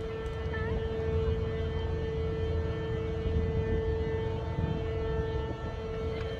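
Steady hum from the Viaduct Harbour lifting footbridge as its leaf rises, one unchanging tone over a low rumble.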